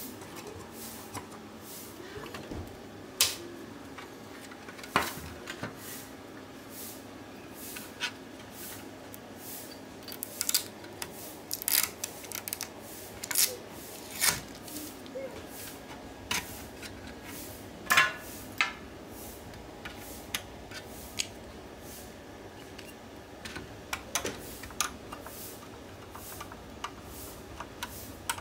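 Irregular sharp clicks and taps of plastic and metal as the fan and grille of a laptop cooling pad are handled and worked at with a small screwdriver.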